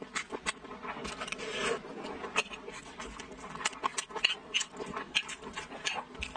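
Close-up eating sounds: wet chewing and mouth smacks of someone eating braised pork intestine rice, with a metal spoon scraping and clinking against a ceramic bowl as it scoops food.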